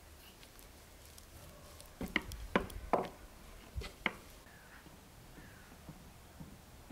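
Thin wooden rolling pin working dough on a wooden board, with a run of sharp wooden knocks and taps about two to four seconds in.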